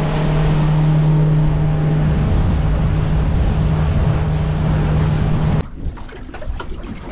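Motorboat engine running steadily at speed, with the rush of wind and water. It cuts off abruptly about five and a half seconds in, leaving quieter wind and a few small knocks.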